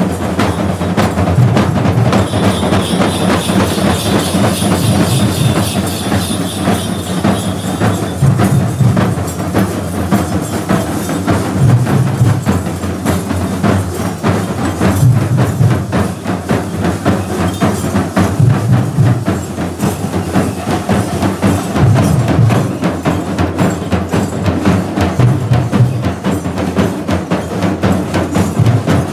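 Kavadi procession drumming: rope-laced barrel drums beaten in a fast, dense rhythm, with heavier low beats every few seconds. A high steady ringing sounds over the top from about two seconds in until about eight seconds.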